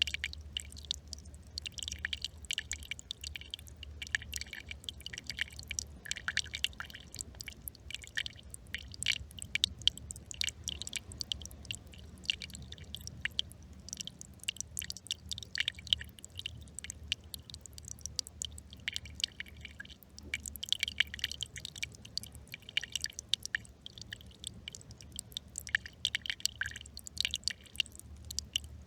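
A small stream trickling: a dense, irregular patter of little splashes and gurgles over a steady low hum.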